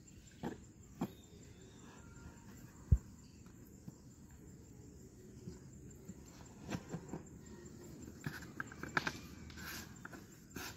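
A clear plastic bottle and its lid handled on sandy ground: scattered light knocks, clicks and rustles, with one dull thud about three seconds in and a short run of clicks near the end.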